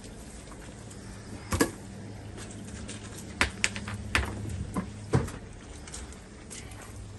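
Several separate sharp knocks and clunks of flat slabs and stones being lifted and set down in a drained pond, over a steady low hum.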